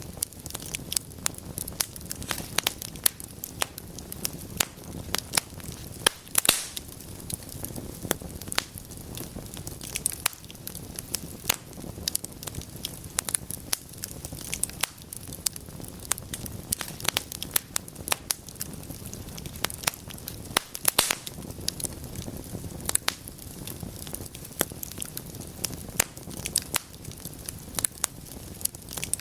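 Wood fire of burning logs in a fireplace crackling, with frequent irregular sharp pops over a low steady rumble of the flames, and a louder burst of pops about six seconds in.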